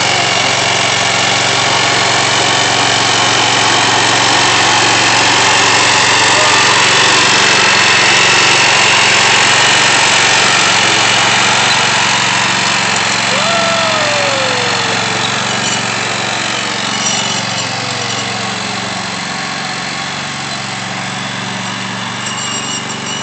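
Small tractor's engine running steadily under load while pulling a moldboard plow, growing a little louder and then slowly fading.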